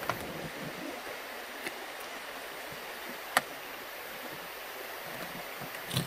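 Steady rush of a creek, with a few sharp clicks and knocks from a hard-shell rooftop tent being pulled shut. The loudest is a single sharp click about three and a half seconds in.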